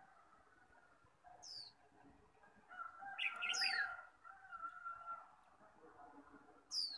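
Caged white-eyes calling and singing: short, sharp high whistles sliding down in pitch, three of them about two seconds apart, with lower warbling phrases between them that are loudest around the middle.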